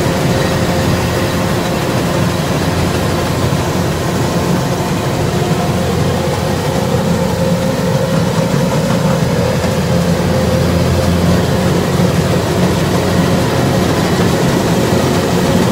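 Kubota DC-105X rice combine harvester's diesel engine running steadily at an even pace, with a constant low drone and a steady mid-pitched hum over it.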